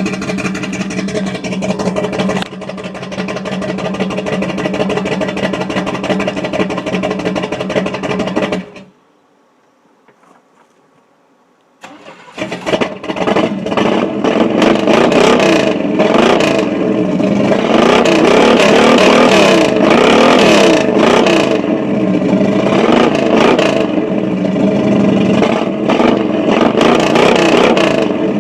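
Chevrolet 350 small-block V8 running steadily, then shut off for about three seconds and started again, after which it runs louder with its pitch rising and falling as it is revved. The owner suspects a misfire.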